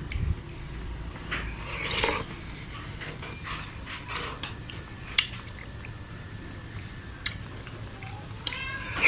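Scattered light clicks of a spoon against a dessert bowl while eating, over a low steady hum, with a short cry near the end.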